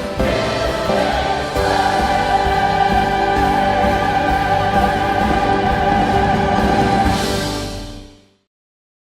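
Church choir and orchestra singing and playing a long held chord. It swells brighter near the end, then fades out quickly about eight seconds in.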